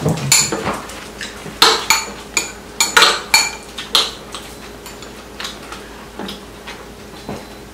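Chopsticks and spoons clinking against ceramic bowls and plates during a meal: a scattered run of sharp clinks, busiest in the first four seconds and thinning out after.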